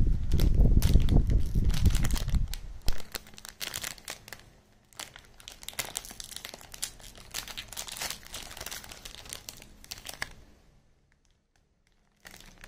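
A plastic Pedigree Dentastix treat pouch being handled and opened, crinkling with scattered sharp crackles. The first couple of seconds also carry a loud low rumble, and the crackling stops about two seconds before the end.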